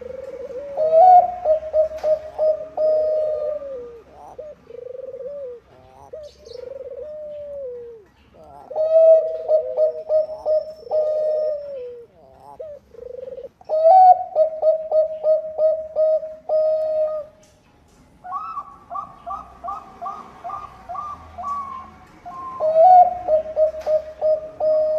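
Zebra dove of the Bangkok perkutut strain cooing in repeated phrases. Each phrase is a quick run of short notes ending in a longer held note, and there are about five phrases with short pauses between them. In the later part one phrase is a higher-pitched run of rapid notes.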